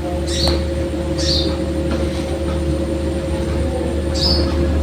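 A sogon songbird giving three short, high chirps over a loud, steady low hum.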